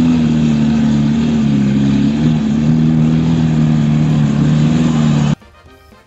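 A supercar's engine running steadily at a low, even pitch. It cuts off abruptly about five seconds in, leaving faint music.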